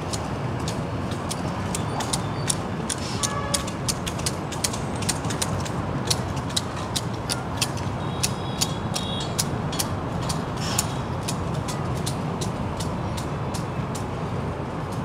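Long-handled hedge shears snipping topiary foliage in quick, irregular clicks, over a steady hum of street traffic.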